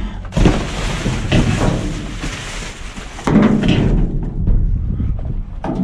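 Rummaging through junk in a dumpster: scrap wire and metal pieces shifting and clattering, with irregular knocks and scraping.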